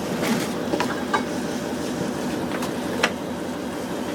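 Boat engine running steadily under a continuous hiss of water, with a few sharp clicks and knocks, the loudest about three seconds in.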